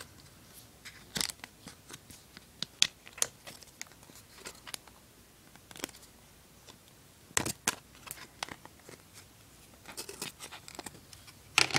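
Rubber skin of a Griffin Survivor case being peeled off its hard plastic inner shell by hand: scattered sharp clicks and snaps with soft rubbing scrapes, coming in irregular clusters.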